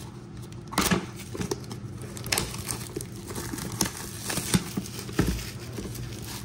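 Plastic shrink wrap being torn and pulled off a trading-card box, crinkling and crackling in irregular bursts.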